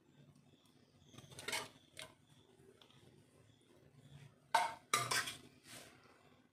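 Metal spoon clinking and scraping against a plate and a pan: a few scattered knocks, the loudest two close together about four and a half seconds in.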